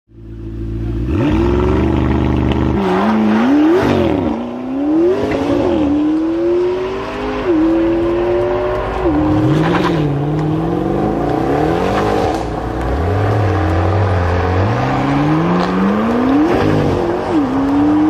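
Sports car engine accelerating hard again and again: the pitch climbs and drops sharply many times, as with quick gear changes or repeated revving. About 13 seconds in it settles briefly to a lower, steady note before climbing again.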